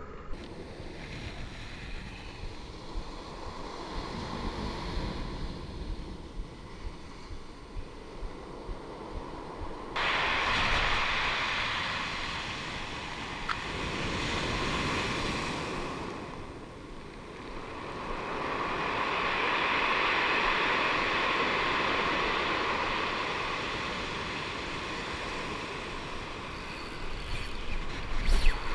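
Ocean surf breaking and washing up on a pebble beach, swelling and falling over several seconds, with wind on the microphone. It is quieter at first and jumps louder about a third of the way in.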